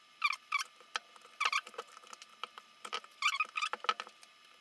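Rubber squeaking on glass: several short squeaks in irregular succession, with a few faint clicks, as a suction puller is worked at the edge of an iPad Mini 4's heat-softened display to lift it off.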